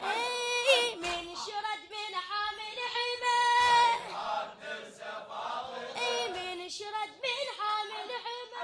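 A boy reciter singing a Shia mourning lament (latmiya) into a microphone in long, wavering held notes, with a group of voices chanting along.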